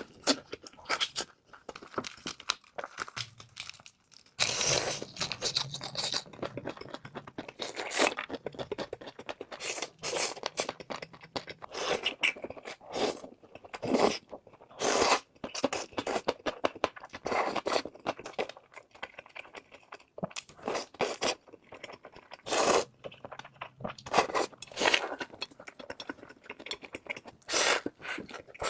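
Close-miked eating sounds: irregular crunching bites and chewing of food, with scraping sounds in between.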